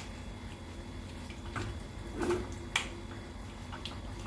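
Red plastic spatula stirring chopped raw tripe, onions and tomatoes in a metal pressure cooker pot, knocking the pot with a handful of separate sharp clicks.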